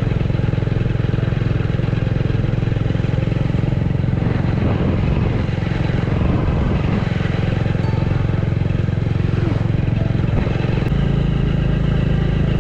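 Hero Splendor's small single-cylinder four-stroke engine running steadily while the motorcycle is ridden at an even pace. The engine is freshly overhauled and is being run in at moderate speed.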